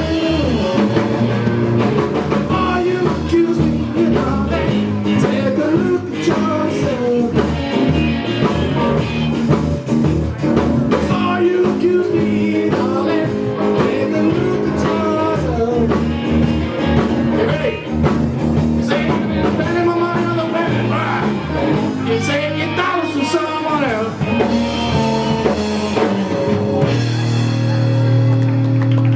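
Rock band playing a bluesy song: a singer over guitar and drum kit.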